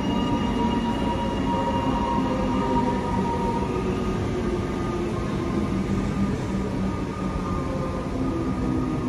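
Comeng electric suburban train moving at the platform: a steady rumble with several held whining tones, some of which slowly fall in pitch.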